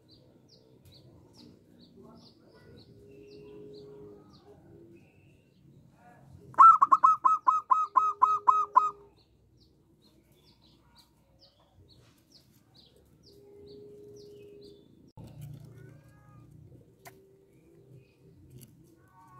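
Zebra dove singing: a quick run of about ten loud, clipped cooing notes lasting a couple of seconds, about six seconds in. Faint high chirps tick about twice a second behind it.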